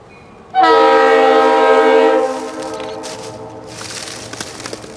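Diesel locomotive air horn on an approaching train sounding one long chord of several notes for about a second and a half, then cutting off with a short echo, followed by a fainter rumble from the train.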